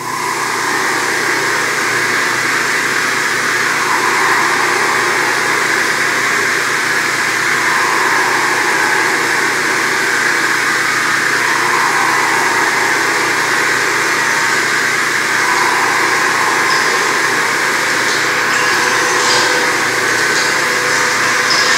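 Steady, dense electronic noise drone from a live experimental sound performance, with slow swells rising and falling every few seconds.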